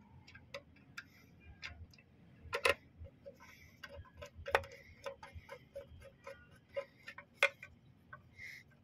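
Screwdriver turning a screw into the plastic housing of an electric dry iron: a run of light, irregular clicks and ticks as the screw is driven and tightened.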